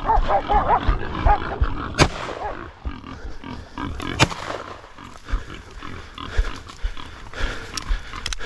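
Feral pigs squealing, then two gunshots about two seconds apart, fired with rat shot, followed by running footsteps.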